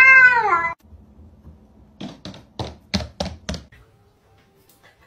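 A cat's drawn-out meow that bends in pitch and stops under a second in. After a pause comes a quick run of about six sharp taps or knocks.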